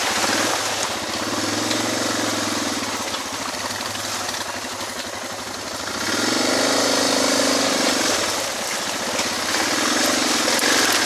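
Suzuki DR650 single-cylinder engine running on the move over a steady hiss. It pulls harder and rises in pitch about six seconds in, then again near the end.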